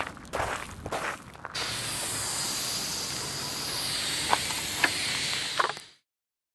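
An aerosol spray paint can spraying in a steady hiss for about four seconds, after a second and a half of scuffing. There are a few sharp clicks near the end, and then the sound cuts off abruptly.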